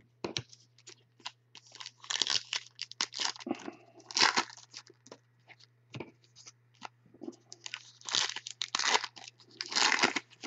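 Baseball cards being handled and sorted by hand: an irregular run of short rustles and small clicks, in clusters every second or two, the fuller ones about two, four, eight and ten seconds in.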